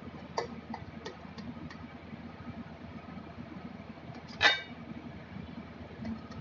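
Knife blade clicking against a steel plate as it cuts through soft steamed dhokla: several light clicks in the first two seconds, one sharper clink a little after four seconds, and two faint ones near the end, over a steady low hum.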